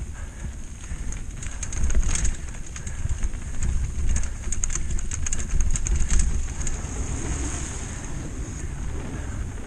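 Mountain bike descending fast over rocky singletrack: tyres drumming over stones and the bike rattling with many sharp clicks, over a steady rumble of wind on the helmet microphone. Near the end the rattling eases into a smoother rolling noise as the bike runs onto a wooden boardwalk.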